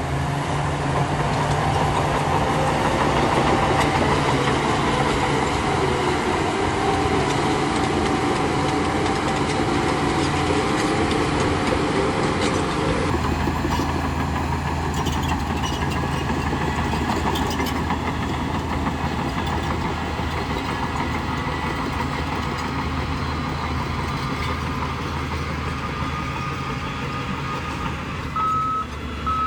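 Diesel engine of heavy earthmoving machinery running steadily under load. Near the end a reversing alarm starts beeping.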